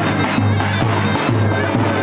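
Live wedding dance music: a davul bass drum beats a steady rhythm of about two strokes a second under a shrill, reedy wind instrument playing the tune.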